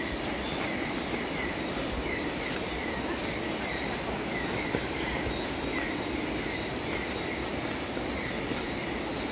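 Night-time tropical forest ambience: a steady, shrill insect chorus with chirping calls repeating every fraction of a second, over a steady rushing noise.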